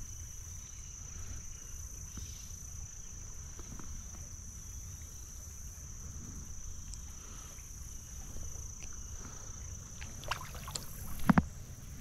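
Steady high-pitched insect drone over a low outdoor rumble, with a few sharp clicks near the end.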